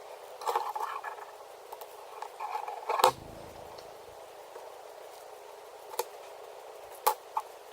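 Scattered light clicks and rustles of small tools and parts being handled on a work surface, with one louder knock about three seconds in.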